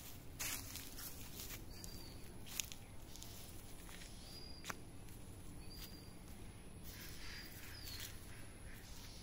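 A small bird repeating a short high call every second or so, over faint rustling steps in dry grass and leaves and a steady high-pitched whine.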